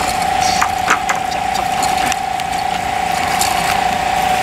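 Fishing reel buzzing steadily at one pitch while a big red sea bream is played on the line, with scattered sharp clicks.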